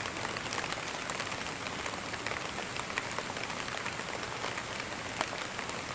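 Steady rain falling, an even hiss with many small scattered drop ticks.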